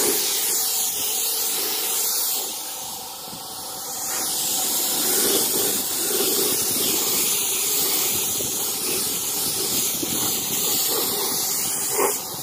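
Paint spray gun hissing steadily with compressed air, with a brief dip in loudness about three seconds in.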